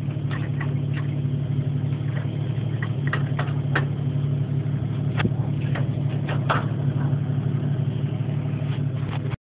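1992 Jeep Cherokee's engine idling steadily, with scattered metallic clinks and knocks as a trailer safety chain is handled at the hitch.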